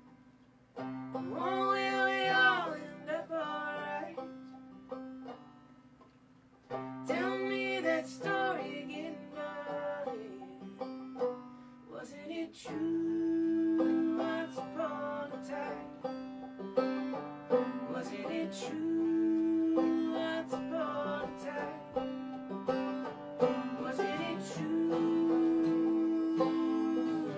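Banjo and acoustic guitar playing a folk song live, with a voice singing a line near the start and again about seven seconds in, then banjo picking under long held notes.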